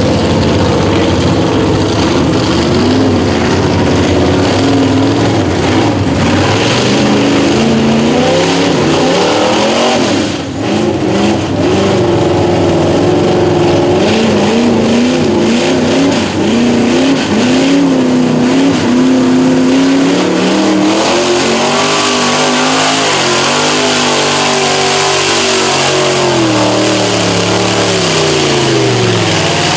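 Lifted mud truck's engine revving hard as the truck churns through a mud pit, its revs rising and falling over and over. Mud and water splash and hiss from the big tyres, more so in the second half.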